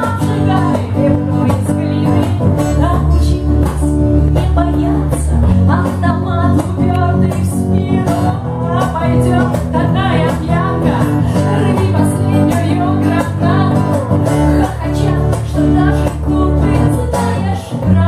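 Live acoustic song: a strummed acoustic-electric guitar and an electric bass, with a woman singing.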